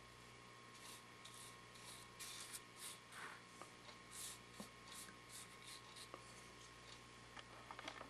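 Soft bristle brush swept over a carved, wood-burned wooden snake: a run of quick, faint swishing strokes, a few a second, under a steady electrical hum, with a few small clicks near the end.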